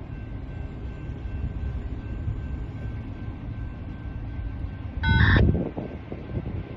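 Freight train rumbling steadily, with a brief loud honk about five seconds in.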